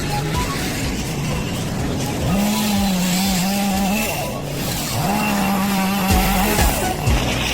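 Chainsaw revved to full throttle twice, each time held steady for about a second and a half, dropping back to a lower, uneven running speed in between.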